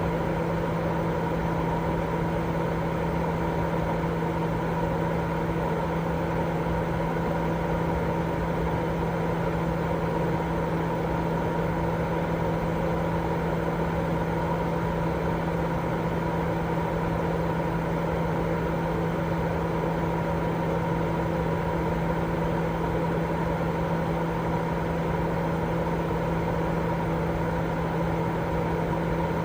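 Continuous, unchanging sleep-aid white noise, heavier in the lows than the highs, with a steady hum running through it.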